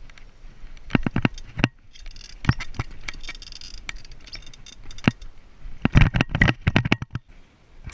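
Mountain bike rolling over a wooden slatted boardwalk: the tyres knock across the boards and the frame and chain clatter, in three bursts of sharp knocks, the loudest near the end.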